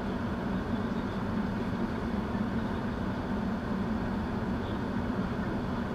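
Steady low hum and rumble of an idling car, heard from inside the cabin.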